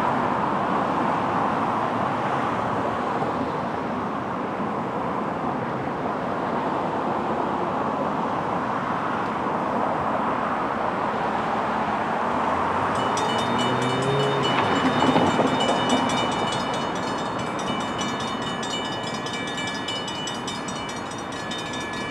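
Steady distant outdoor rumble, joined about thirteen seconds in by a high, rapidly pulsing buzz of several steady tones.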